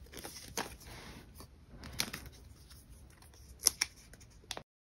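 Photocards and clear plastic binder sleeves being handled: soft rustling with a few sharp clicks and taps as the cards are slid into the pocket pages. The sound cuts off abruptly just before the end.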